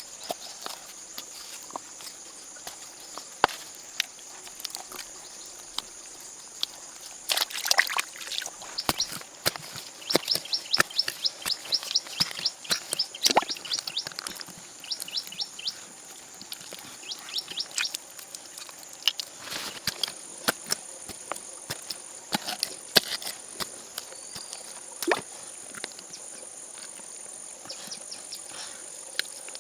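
Steady high insect chirring, with scattered sharp clicks and knocks throughout and a quicker run of ticks in the middle.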